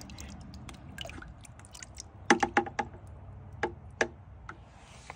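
Plastic tongs and a scallop shell clicking and tapping against a plastic bucket as the shell is swished in rinse water after an acid dip: a quick cluster of four clicks a little over two seconds in, then two single clicks near the end, over faint sloshing water.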